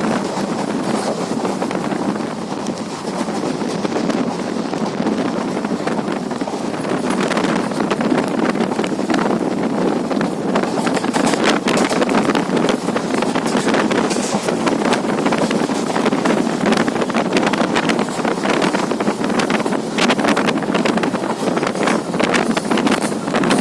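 Passenger train running at speed: a loud, steady rushing noise with many small crackles and clicks all through it.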